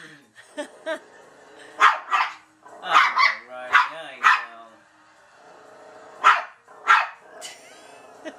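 Toy poodle barking excitedly at dogs on a television: about nine short barks in ones and twos, with the TV's sound faintly underneath.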